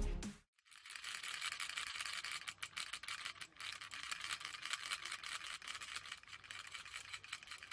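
Faint, dense rattling clatter of many small rapid clicks, thin and high with no low end, starting about a second in and stopping near the end.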